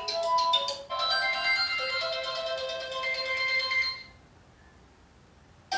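Ringtone previews playing from a Tecno Spark 7 through its earpiece, which serves as the phone's only speaker. One melodic tone switches to another about a second in, which stops about four seconds in. The sound is thin and not loud, with little bass.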